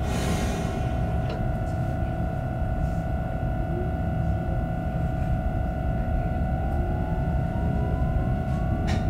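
Inside an X60B electric commuter train: a steady electrical hum of several held tones over a low rumble, with a brief hiss at the start. A faint whine rises in pitch over the last couple of seconds as the train starts to move.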